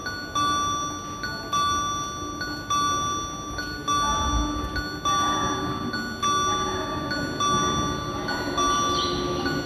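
Electronic train-approach chime on a Tobu Skytree Line platform: a bell-like chord struck about once a second, each strike ringing out before the next. About four seconds in, a brief low rumble comes in, and a steady lower hum runs under the chime from then on.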